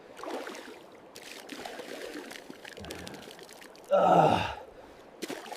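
Faint water pouring and trickling for the first few seconds, then a short voiced sigh about four seconds in.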